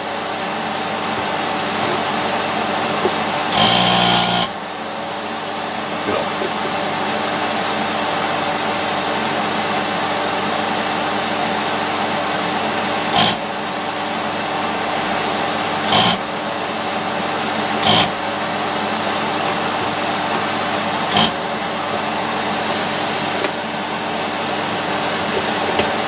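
Vacuum desoldering tool working on lithium-ion battery cell tags: a steady whir and hiss, broken by a louder buzz about a second long near four seconds in and by four short sharp bursts later on.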